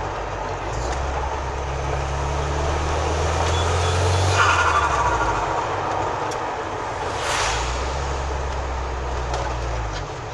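Turbocharged Honda F22Z2 four-cylinder engine with a TD04-13T turbo, revved and then let off about four and a half seconds in. The let-off brings a short burst of turbo flutter as the engine note drops, and the engine is revved again with a hiss a little after seven seconds.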